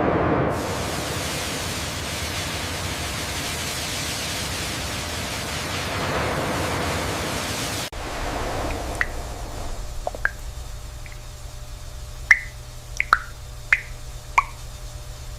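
A steady rushing hiss that cuts off abruptly about eight seconds in. A quieter stretch follows with about ten scattered water drips.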